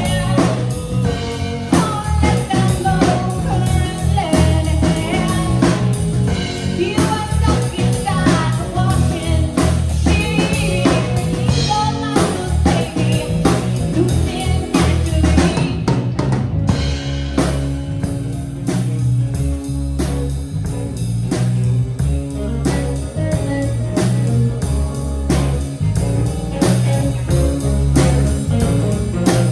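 Band music with singing over drums, bass and guitar; the singing drops out about halfway and the instruments carry on.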